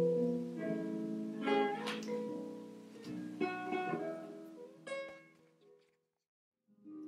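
Background music with picked notes. It fades out about six seconds in, falls silent briefly, and the next piece starts near the end.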